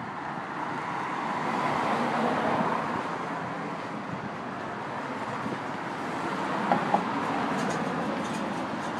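Street traffic: cars driving past, the road noise swelling about two seconds in and again in the last few seconds. Two short clicks about two-thirds of the way through.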